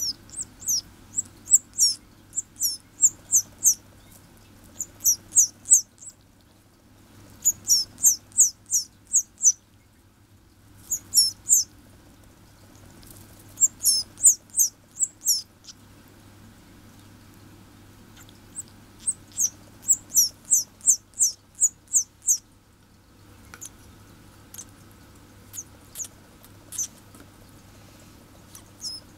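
Red canary chick begging for food while being hand-fed: rapid, very high-pitched cheeps, about three a second, in bouts of a few seconds with short pauses between them.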